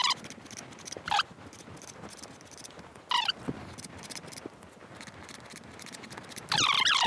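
Metal putty knife spreading and smoothing spackle over drywall: a soft, uneven scraping of the blade across the wall.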